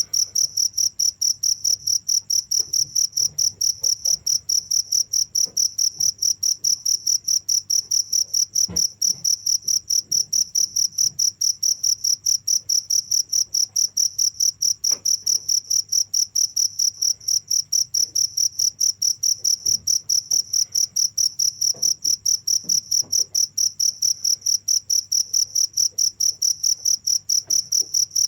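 Cricket chirping: a high-pitched chirp repeated at an even rate, about four to five a second, without pause.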